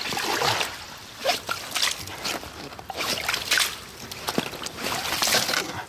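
Water sloshing and splashing irregularly, with scattered knocks and crackles.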